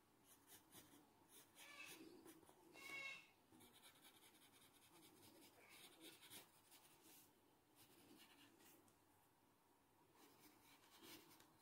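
Faint scratching of a graphite pencil on paper: short, irregular runs of shading strokes, the strongest about three seconds in.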